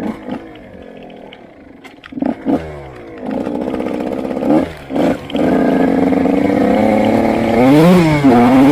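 Motorcycle engine heard from on board: the throttle is blipped a few times at low revs, then held open from about three seconds in, with the revs climbing and staying high. A quick rise and dip in engine pitch comes near the end.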